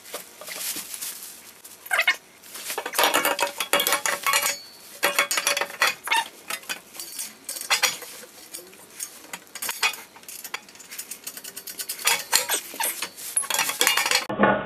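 Fast-forwarded, sped-up sound of metal tools and parts clinking and clattering as an exhaust header is fitted and bolted onto the cylinder-head flange: a dense run of rapid metallic clicks and clinks, with a short lull about two seconds in.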